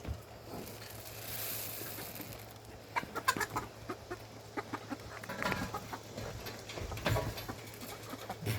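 Chickens clucking, short calls scattered through, with a cluster about three seconds in.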